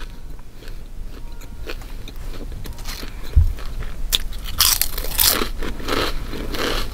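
Close-miked eating of crunchy food: soft chewing at first, a dull thump about three and a half seconds in, then loud crackly crunching from about four and a half seconds on.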